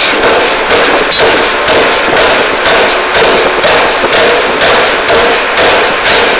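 Air forging hammer striking a glowing hot metal workpiece on its anvil die, a steady rhythm of about two heavy blows a second.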